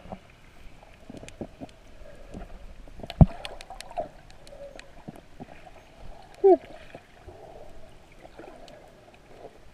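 Underwater sound through a submerged camera: a low wash of water with scattered small clicks and knocks, and one sharp knock about three seconds in. About six and a half seconds in there is a short, loud, muffled vocal sound that falls in pitch: a snorkeler's voice heard through the water.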